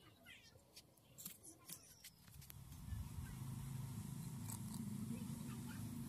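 Faint clicks of garlic being peeled against a sickle blade. Then, from about two and a half seconds in, a steady low rumble of a pot of water heating over an open fire.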